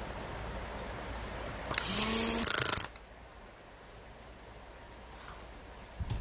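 A small power tool runs in one short burst of about a second, its pitch rising slightly, over a steady background hiss.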